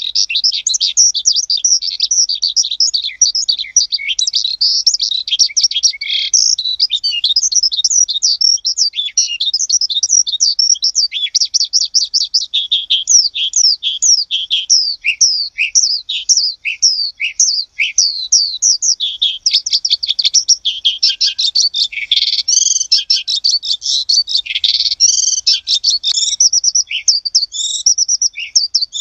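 A flock of small birds chirping continuously, many quick high chirps overlapping one another, busiest in the last third.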